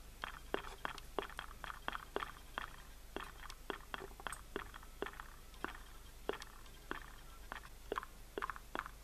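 Irregular sharp crackling clicks, about three a second, from the hot sand bath and the covered flask of relay contacts dissolving in nitric acid, its hotplate just heated and switched off.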